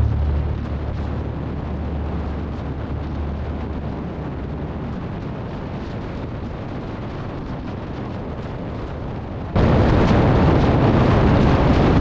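Wind rushing over the microphone of a motorcycle on the move, with the engine rumbling underneath; the noise jumps suddenly louder about ten seconds in.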